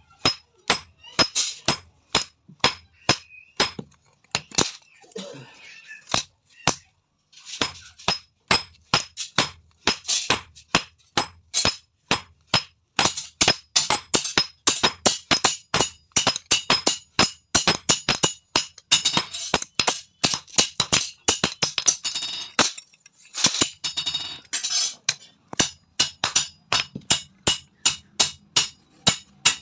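Hand hammer striking red-hot steel on an anvil: a steady run of sharp metallic blows, about three a second, with a few short pauses.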